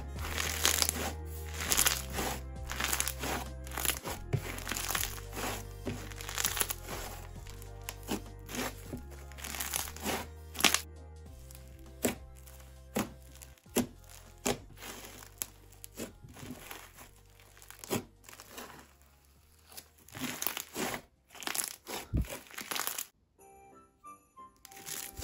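Crunchy slime full of bingsu beads being pressed and kneaded by fingers, giving rapid crackling and crunching pops, with background music playing. The crackles thin out in the second half and stop shortly before the end.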